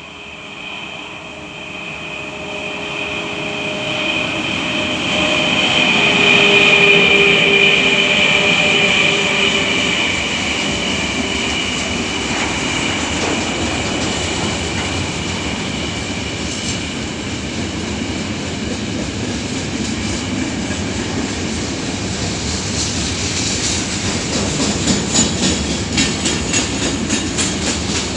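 3ES5K 'Ermak' electric locomotive passing at the head of a freight train, without sounding its horn. A steady high whine and rumble swell as it comes by, peaking about seven seconds in, then give way to the running noise of the wagons. Near the end comes a rhythmic clickety-clack of wheels over rail joints.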